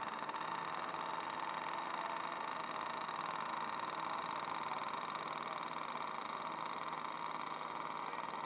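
Steady whooshing hiss of a Freewing F-18C's 90 mm electric ducted fan in flight, holding an even level.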